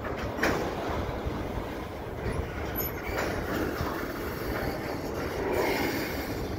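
Double-stack intermodal well cars rolling slowly along the rails as the train is shoved back into the yard, a steady rumble of wheels and couplers with a short clank about half a second in.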